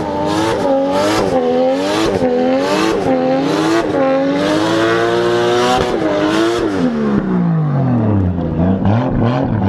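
Drift car engine revved hard and repeatedly, the pitch climbing and dropping about once every 0.7 seconds, with a rush of noise at each peak. Near the end the revs fall away in one long drop over about two seconds.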